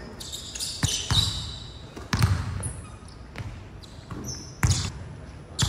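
Basketball bouncing on a hardwood court in irregular thumps, with short high-pitched sneaker squeaks from players moving on the floor.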